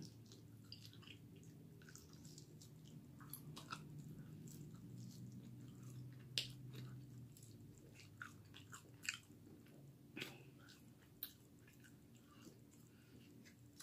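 Faint chewing and biting on a sauced chicken wing, with scattered small wet clicks and mouth smacks; the sharpest smacks come about six and a half and ten seconds in.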